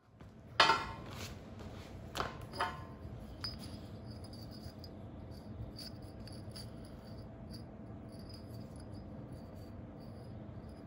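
Short pieces of galvanized steel tube clanking on a steel plate as they are handled: one sharp metallic clank with a brief ring about half a second in, two more clinks around two seconds in, then only a few faint taps over a steady low hum.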